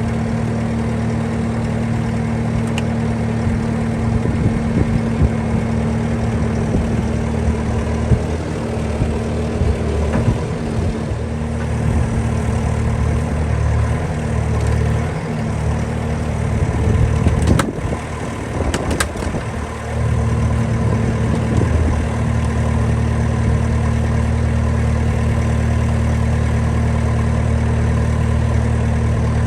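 Bobcat skid steer's diesel engine running steadily, its note wavering and breaking up for a stretch in the first two-thirds as the machine works, then settling back to an even run. A few sharp knocks come about eighteen seconds in.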